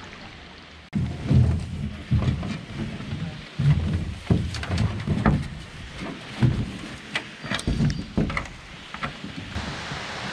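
Canoe hull being dragged out of the water and over rocks and ground: irregular heavy knocks, thumps and scrapes that start suddenly about a second in.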